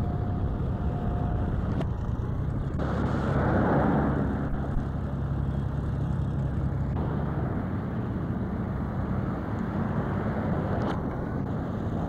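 Road traffic noise: cars driving past on a busy highway, in a steady rumble that swells about three to four seconds in as a vehicle passes close by.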